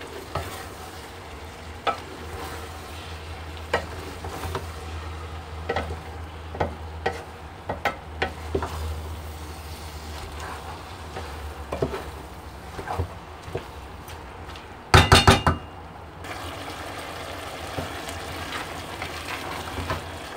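Wooden spoon stirring spinach, potatoes and peas in an aluminium pot over a low sizzle, with scattered knocks of the spoon against the pot. About fifteen seconds in, a quick run of loud knocks; a steady low hum sits underneath for much of the time.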